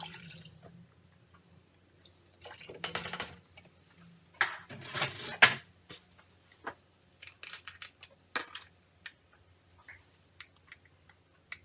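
Kitchen handling noises: two short stretches of scraping and clattering from utensils and cookware, then scattered light clicks and knocks.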